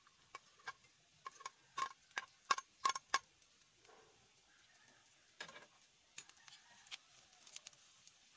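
Metal spoon clinking and tapping against a ceramic plate and a stainless steel pan as minced garlic is scraped in: a quick run of sharp, ringing clinks about two to three seconds in, then scattered lighter ticks and scrapes as a utensil starts stirring in the pan.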